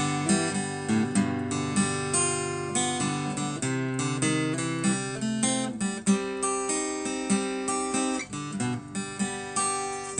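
Instrumental blues break led by strummed acoustic guitar, steady rhythmic strokes under sustained chords.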